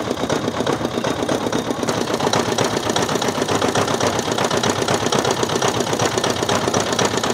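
Motor-driven sugarcane juice crusher running, a rapid, steady mechanical clatter.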